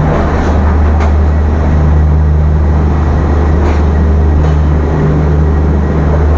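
Steady low hum of a passenger train standing at the platform, heard close beside its coaches, with a few light ticks over it.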